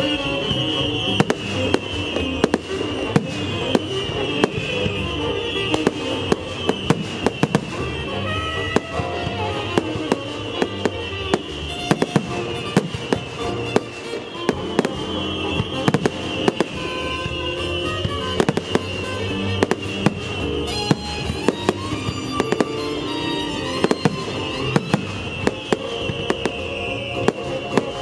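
Aerial firework shells launching and bursting in a dense display, giving many sharp bangs in an uneven stream, with show music playing underneath.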